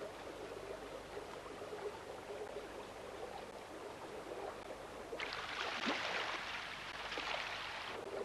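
Running river water, a steady low rush, swelling into a louder hissing rush of water about five seconds in that lasts some three seconds.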